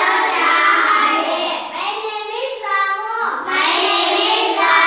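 A group of children's voices chanting together in a sing-song unison, with no break.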